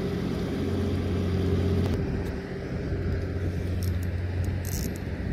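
A steady low engine hum runs throughout, with a brief high hiss near the end.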